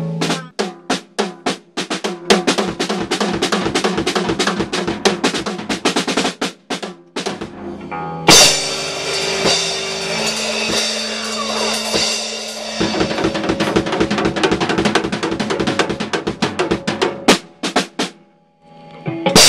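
Rock drum kit played in fast rolls and fills on snare and toms, with a loud cymbal crash about eight seconds in that rings on over held electric guitar and bass notes. The fills carry on and end in a few separate heavy strikes near the end.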